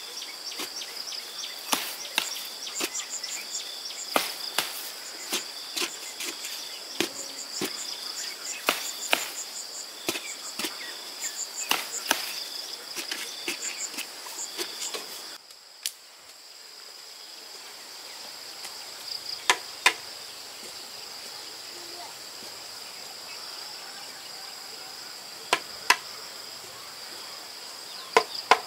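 A bamboo pole jabbed again and again into the soil, making quick dull knocks several times a second for about fifteen seconds, over the steady trilling of insects. After that the knocking stops, and only a few louder knocks come in pairs while the insects keep on.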